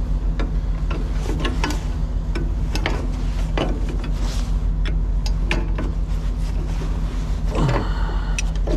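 Steady low engine hum under irregular clicks, taps and scrapes of hand work on a metal air-hose fitting being threaded together.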